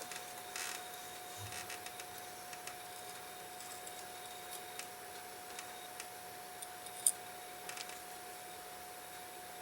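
Faint, irregular small metallic clicks of watchmaker's tools working on a pocket watch movement, with one sharper click about seven seconds in, over a steady faint whine.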